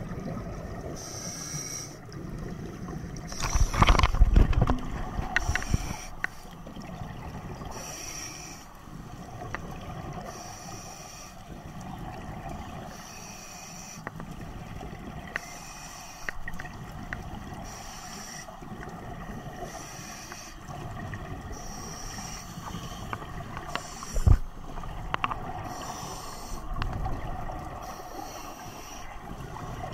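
Scuba breathing through a regulator underwater: repeated hissing inhalations alternate with bubbling exhalations, and the loudest burst of exhaust bubbles comes about four seconds in. A sharp knock sounds near the end.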